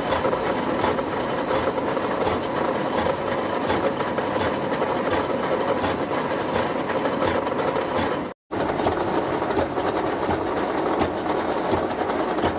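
A 1M63 heavy screw-cutting lathe runs while its cutter faces the end of a crooked workpiece, making a steady machine noise shot through with a fast, even rattle of strokes. The sound cuts out for a split second about two-thirds of the way through.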